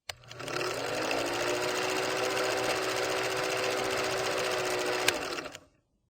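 A small motor's whirr that rises in pitch over the first second and then holds steady. It has a click at the start and another about five seconds in, then cuts off.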